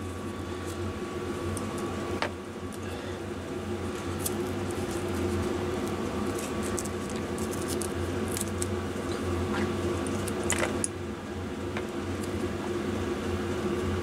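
Faint rustling and scattered small clicks of hands wrapping fibre-backed loom tape around a motorcycle's wiring, over a steady low hum.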